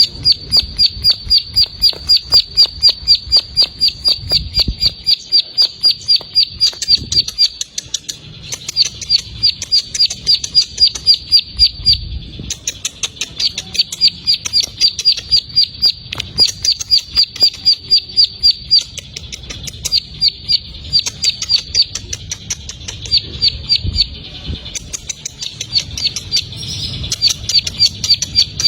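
Ciblek sawah, a prinia, singing its 'ngebren' song: long runs of rapid, evenly repeated high chips, about six a second. The runs break off briefly every few seconds.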